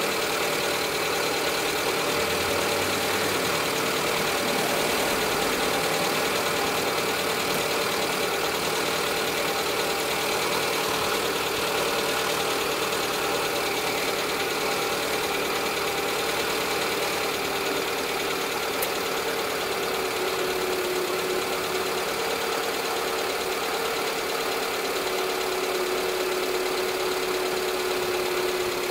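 Renault Clio 3 engine idling steadily with its new intermediate exhaust section, switched over to LPG by the end. It runs evenly, with no misfire sounds.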